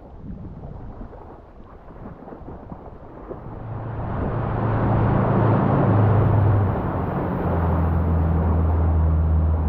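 Rain and wind noise at first. From about three and a half seconds in, a Yamaha outboard motor runs as the small boat moves, growing louder with a steady low hum whose pitch shifts a few times and drops lower near the end.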